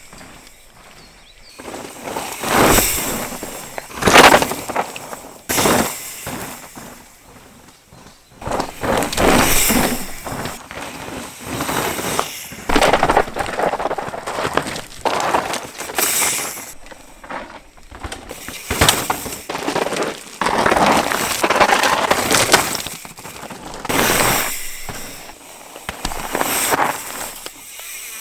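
Mountain bike being ridden hard down a rocky dirt trail: tyres crunching and skidding over loose stones, with irregular clattering knocks from the bike over rough ground. The noise comes in surges with brief quieter spells.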